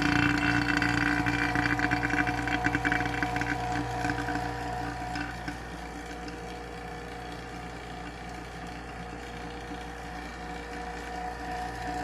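Vacuum pump running steadily while it pulls the tube furnace's tube down to vacuum, with a fast rattle over the first few seconds. It turns quieter about five and a half seconds in and then runs evenly.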